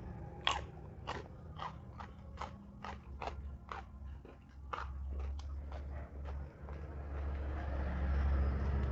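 Close-miked crunching on raw jengkol beans: a run of crisp bites and crunches about two a second, giving way to softer chewing near the end.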